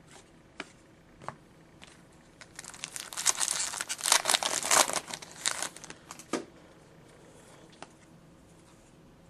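Foil trading-card pack wrapper being torn open and crinkled: a few light clicks, then a dense crackling run of about three and a half seconds, ending with a single soft knock.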